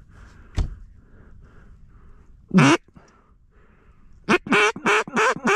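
Mallard duck call blown close by: one loud quack about two and a half seconds in, then, about a second before the end, a fast run of quacks at about four a second. A short knock comes just after the start.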